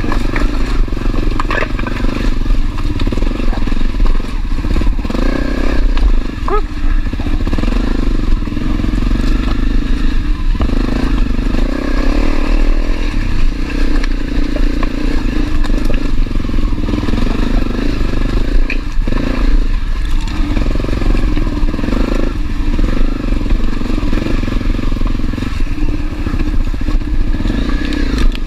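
Honda CRF250L's single-cylinder four-stroke engine running at low trail speed, with scattered knocks and clatter as the bike crosses loose rocks.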